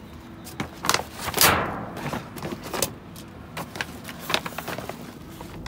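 Irregular knocks, clicks and a scraping rustle as things are handled and shifted around inside a dumpster. The loudest is a scrape about a second and a half in.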